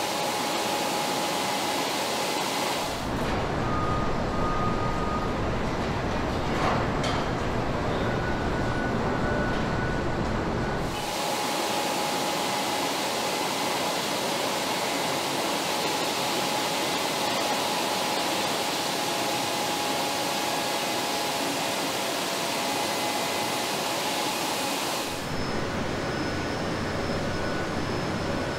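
Steady factory machinery noise: an even hiss with a faint steady whine. A deep rumble joins about three seconds in, drops out near eleven seconds and comes back near the end.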